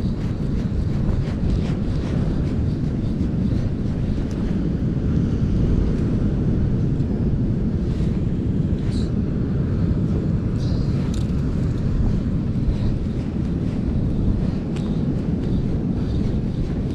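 Steady, gusting wind rumble on the microphone, with a few faint ticks near the middle from hands handling the hooks and line.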